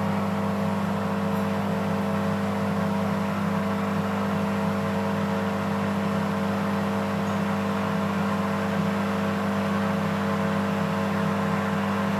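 Beko 5 kg washing machine running with a steady, unchanging motor hum.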